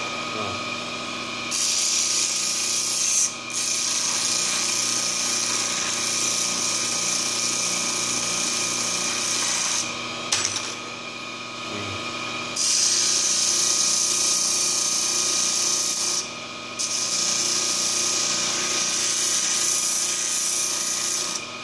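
Homemade sander built from a quarter-horsepower washing-machine motor, running with a steady hum. Its sandpaper disc grinds against a workpiece in four long passes, a loud hiss each time, with short breaks where only the motor runs.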